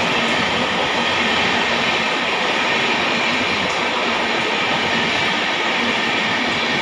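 Passenger train coaches passing at speed close by: a loud, steady rush of wheels running on the rails.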